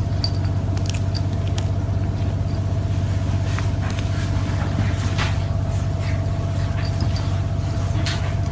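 Cat purring steadily and close up, a continuous low rapid rumble, with a few faint clicks.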